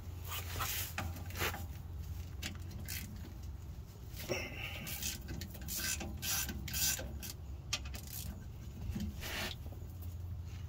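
Socket wrench working the steel bolts on a rear differential cover: scattered metal clicks and scrapes as the bolts are loosened, over a steady low hum.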